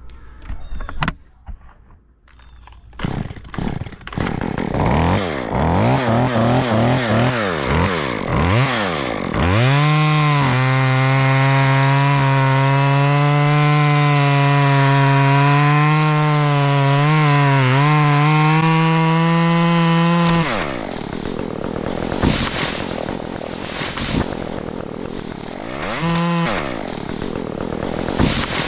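Two-stroke chainsaw revved up and down several times, then held at full throttle for about ten seconds while cutting into white oak, dropping back to a lower running speed with one more brief rev near the end.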